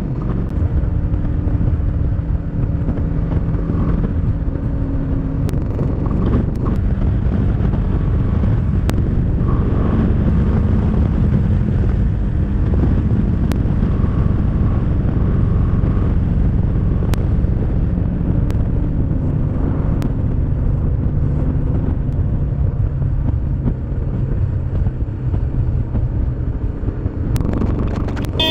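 Motorcycle engine running at road speed under a heavy rush of wind on the microphone. The engine note shifts up and down a few times as the speed changes.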